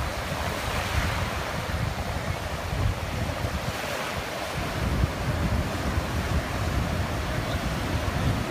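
Ocean surf breaking and washing through shallow water, with wind buffeting the microphone in an uneven low rumble.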